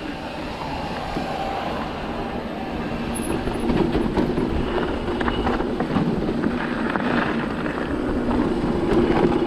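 Cube Stereo 150 TM full-suspension mountain bike descending a dirt trail: steady tyre hum that swells and fades, with scattered rattles and clicks over bumps.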